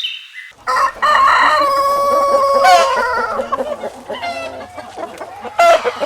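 Rooster crowing with one long cock-a-doodle-doo, followed by a run of shorter clucking calls.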